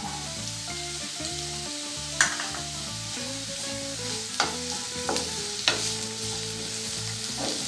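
Carrot sticks and green beans sizzling in hot oil in a kadai while a wooden spatula stirs them, with about five sharp clicks of the spatula against the pan.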